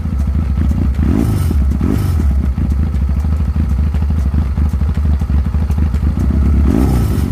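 Chinese 250cc ATV engine running at idle with a steady low pulse, its pitch rising and falling briefly twice in the first two seconds.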